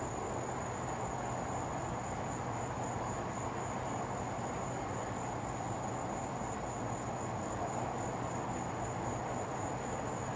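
Insects trilling in one continuous, even high tone, over a steady low hum and a faint background hiss.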